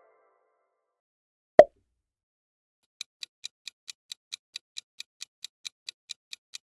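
A single short, loud pop about a second and a half in, then a clock-style tick sound effect from about three seconds in, ticking evenly about four to five times a second as a countdown timer.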